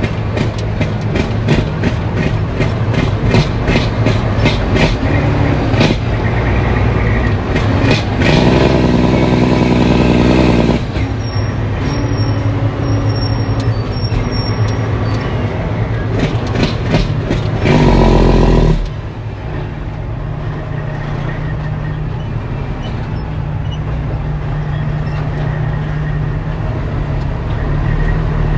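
Heavy diesel dump truck heard from inside the cab on a rough dirt road: the engine runs steadily while the cab and body rattle and clatter over the ruts. The engine note swells louder twice, once for about two seconds a third of the way in and briefly about two thirds in, then settles to a steadier, slightly quieter run.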